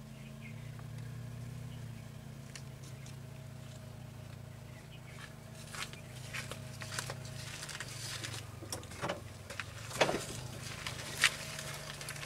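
A vehicle engine idling with a low steady hum. From about halfway it is joined by scattered clicks and knocks, the loudest about ten seconds in.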